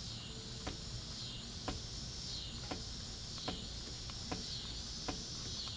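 Faint sharp clicks at a steady pace of about one a second: a crankset shifting in and out in a loose FSA Mega Exo external-bearing bottom bracket whose play needs the dust cap tightened. A steady high chorus of crickets or other insects runs underneath.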